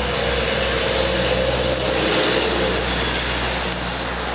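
A motor vehicle going by: a steady engine and road noise that swells to its loudest about halfway through and then fades.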